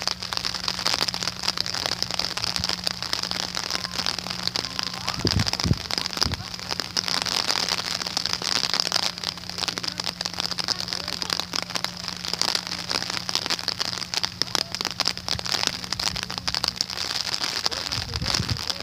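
Steady rain falling, a dense patter of drops with a faint steady low hum underneath that stops near the end.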